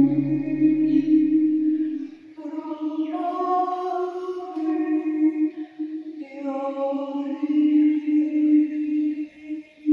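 Wordless sung tones, long held notes over a steady low drone, moving to a new pitch every second or two.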